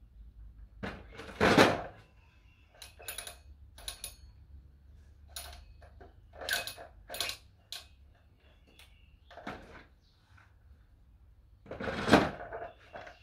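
Adjustable dumbbell clunking against its steel-framed stand as it is lifted out of and set back into the cradle, with sharp clacks from its stacked weight plates. Irregular knocks throughout, the two loudest about a second and a half in and near the end.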